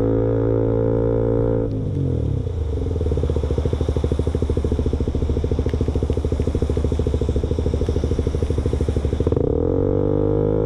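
KTM Duke motorcycle engine running through an exhaust with its baffle removed, which makes the bike louder. The revs are held steady at first and fall away about two seconds in. The engine then runs at low revs with an even pulsing beat, and the revs climb again near the end.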